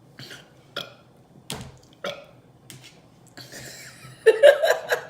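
A woman burping after chugging Coca-Cola, the gas from the fizzy drink coming back up. First comes a string of short, sharp burps, then a louder, longer burp about four seconds in.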